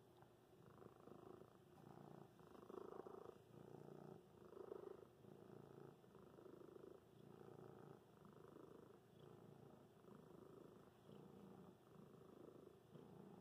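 Grey domestic cat purring quietly while having its head scratched, a steady low purr that swells and eases about once a second.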